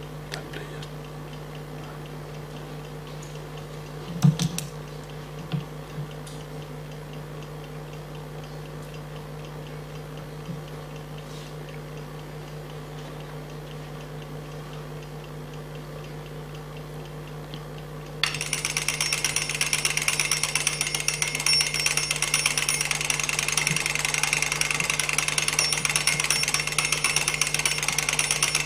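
Twin-bell mechanical alarm clock ringing: a loud, rapid metallic clatter of the hammer on the bells that starts suddenly about two-thirds of the way in. Before it there is only a steady hum and a few faint knocks.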